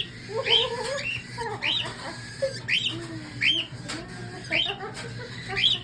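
Young cockatiels calling: a string of short chirps, each rising in pitch, about one a second, over a low steady hum.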